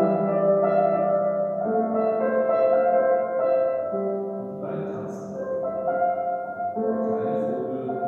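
Grand piano played slowly, held chords that change about every two seconds.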